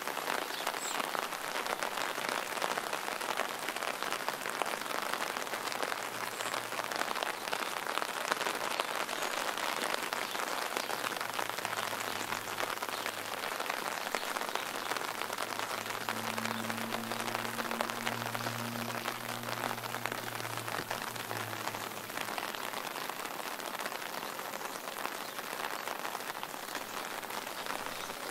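Steady rain falling, a dense even patter of drops. A faint low hum swells and fades in the middle.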